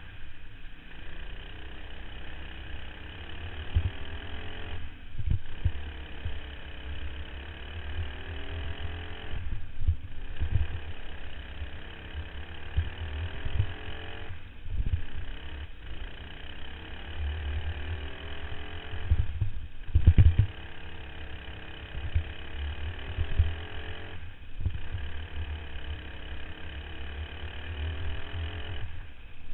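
Racing kart engine at full throttle, its pitch climbing down each straight and dropping sharply when the driver lifts for the corners, about every four to five seconds. A heavy low rumble with thumps from wind and bumps on the onboard microphone runs underneath.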